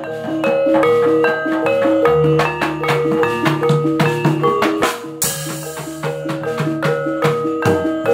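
Javanese gamelan music: struck bronze metallophones play a quick repeating pattern of ringing notes over kendang hand-drum strokes. A bright crash comes in about five seconds in.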